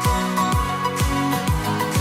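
Background music: a song with sustained chords over a steady kick-drum beat, about two beats a second.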